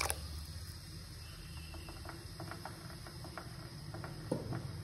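A short knock, then faint scattered ticks and pops from a steel pot of foamy, just-boiled noodle water after cold water has been poured in and the flame switched off.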